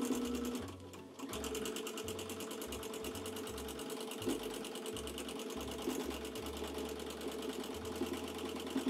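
Home sewing machine running a tight straight stitch at a steady, rapid needle rate, free-motion outlining a monogram letter. It stops briefly about half a second in, then starts again and runs steadily.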